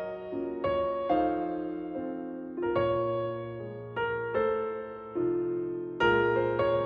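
Background music: slow piano, single chords and notes struck about once or twice a second, each fading away.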